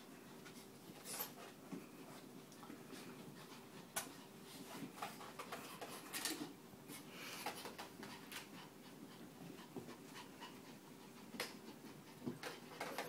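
Small dog panting faintly, with scattered light taps and scratches as it paws at a piano bench and moves about on the carpet.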